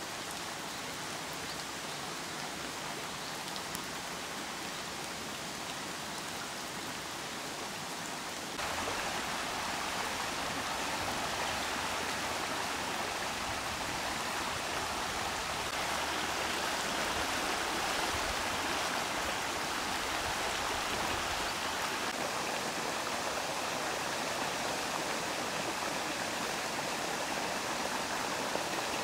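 Rain-swollen brook rushing fast over its bed, floodwater flowing in a steady rush of water noise. It gets noticeably louder about a third of the way through.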